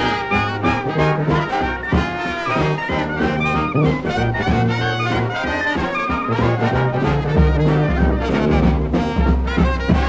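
A traditional New Orleans brass band playing a blues, with trumpets and trombones in ensemble over a low bass line that steps from note to note.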